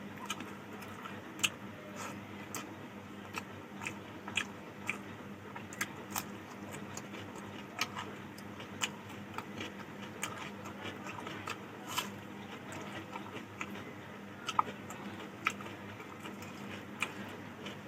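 Close-up eating sounds: a person chewing mouthfuls of rice and curry, with irregular sharp wet clicks and smacks, roughly one or two a second. A steady low hum lies underneath.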